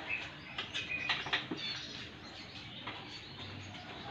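Scattered light metallic clicks and scrapes of a hand wrench working the seat bolts of a motorcycle, with birds chirping in the background.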